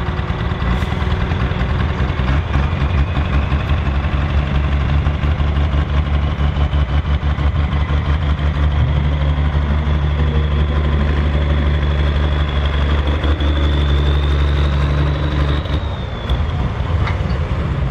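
Tractor-pulling tractor's engine running steadily and loudly, with a thin high whistle that rises slowly over many seconds, then falls away about sixteen seconds in as the engine note drops and changes.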